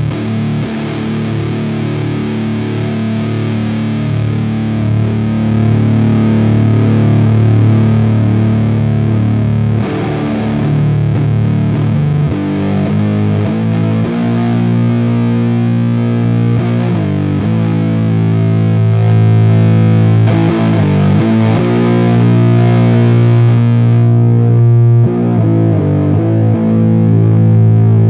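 Heavily distorted electric guitar played through a DIY copy of a Model T JFET amp emulator pedal, with slow, sustained low chords and riffs ringing out. The distortion is thick.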